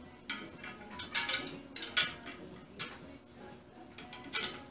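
Steel parts of a target stand knocking and clinking together as they are handled and fitted, about five sharp metallic clinks with the loudest about two seconds in.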